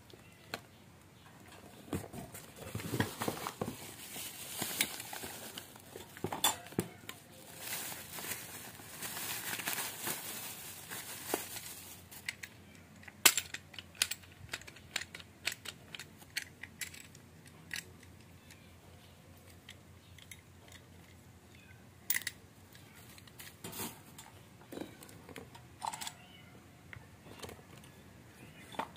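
Plastic wrapping crinkling and cardboard rustling as a small fan is unpacked by hand, for the first half or so. Then scattered clicks and knocks as the fan's plastic guard and metal clamp bracket are handled.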